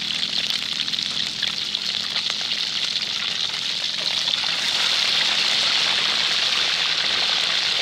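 Snakehead fish deep-frying in a pan of hot oil: a steady sizzle with many small crackles, a little louder from about halfway through.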